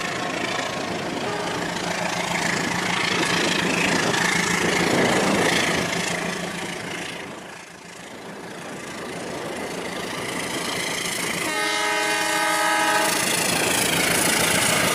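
Toy trains running on plastic track, a steady running and rattling noise that swells as each train comes near and fades about halfway through. A horn sounds for about a second and a half near the end.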